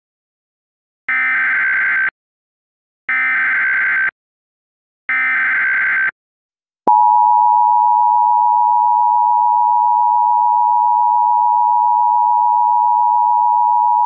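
Emergency Alert System tones: three one-second bursts of SAME digital header data, a second apart, then about seven seconds in the steady two-tone EAS attention signal starts and holds.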